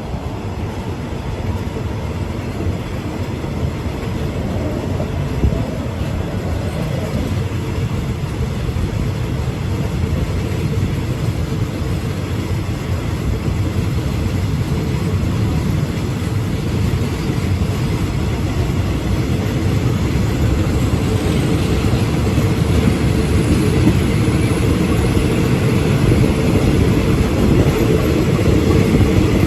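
Passenger train running on the line, a loud steady rumble that slowly grows louder.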